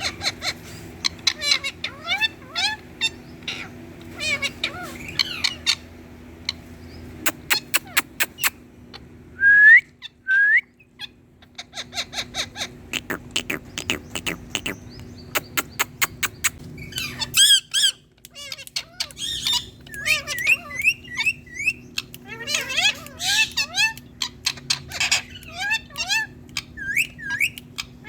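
Indian ringneck parakeet calling: a run of quick chirps, squawks and clicks, with two loud rising whistles about ten seconds in. A steady low hum sits underneath.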